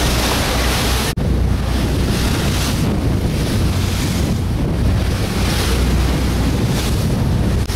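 Wind buffeting the microphone on a moving boat, over the rush of water along the hull and a steady low engine hum; the sound drops out for an instant about a second in.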